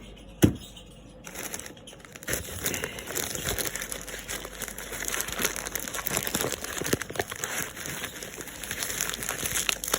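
Packaging crinkling and rustling continuously as a sample product is unwrapped by hand, after a single sharp click about half a second in.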